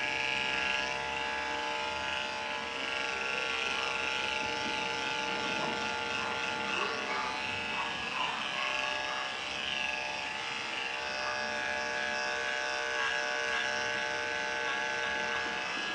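Andis 5-speed corded dog clipper running steadily with an Oster attachment comb over a #10 blade, clipping through a dog's coat, a continuous motor buzz.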